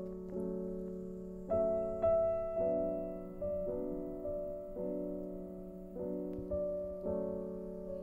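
Slow, soft piano music: notes and chords struck every half second or so, each ringing on and fading away.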